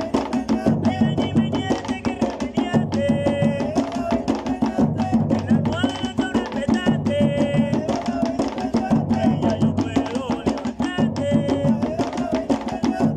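Hand-drum ensemble of congas, a djembe and stick-beaten bass drums playing a steady driving rhythm, with voices singing in short phrases over it.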